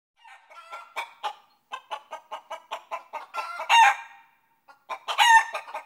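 A fowl clucking in a quick run of short clucks, about five a second, broken by two loud squawks, one just under four seconds in and one about five seconds in.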